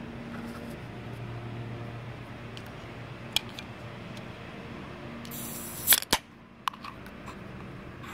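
Aluminium beer can opened by its pull tab: a short hiss of escaping gas and a sharp crack of the tab about six seconds in, with a few small clicks before and after.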